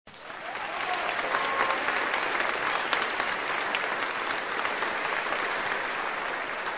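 Concert audience applauding, fading in over the first second and then holding steady.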